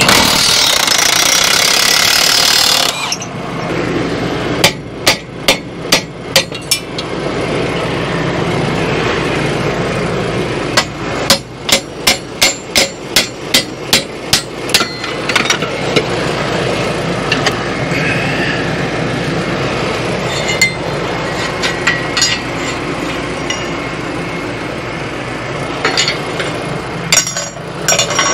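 A hammer striking the metal of a disc harrow in quick runs of about three blows a second: a first run of six, then a longer run of about a dozen, with a few single strikes later. The blows come as the mud scraper plate is being worked loose. A loud rushing noise fills the first three seconds.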